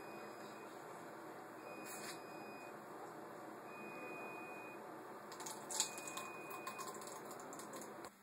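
Manual toothbrush scrubbing teeth through a mouthful of beer, a steady wet brushing noise, with a few sharper splutters about two-thirds of the way in. A faint short high beep recurs about every two seconds.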